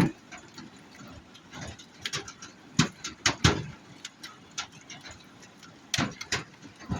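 Hailstones striking a trailer's roof and walls in irregular, scattered knocks and clicks, several sharper hits standing out over a light patter.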